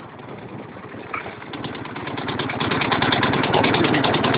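Motorcycle engine running on the road, growing louder from about a second and a half in as it picks up revs.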